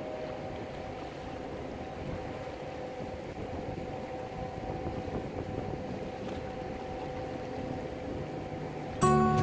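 Water taxi's motor running steadily under way, a hum with a few held tones over the rush of water against the hull. Music cuts in abruptly near the end.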